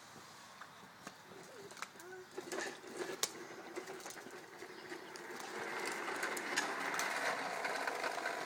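Small motor of a bubble-blowing toy lawn mower whirring, growing louder in the second half, with scattered light clicks and knocks before it.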